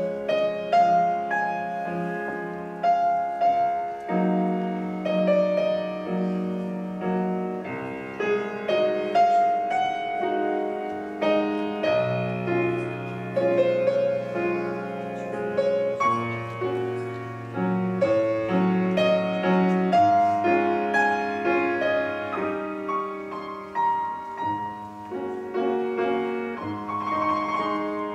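Grand piano playing the solo introduction of a trumpet-and-piano piece: struck chords ringing on under a melody line, with the trumpet not yet playing.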